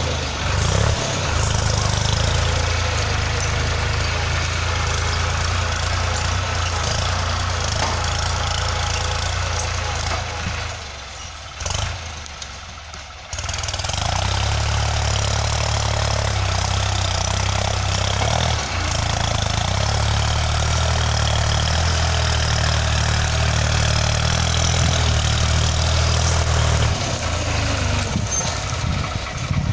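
Farm tractor engine running steadily while ploughing. Its low drone falls away for a couple of seconds around the middle, then comes back at full level.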